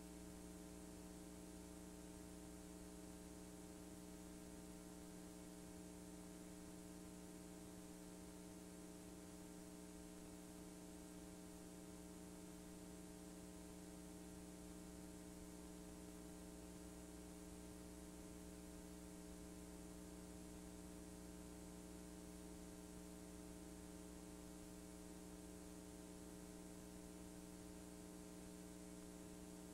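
Near silence: a faint, steady electrical hum with light hiss from the tape playback, on a blank black stretch of a VHS-C transfer.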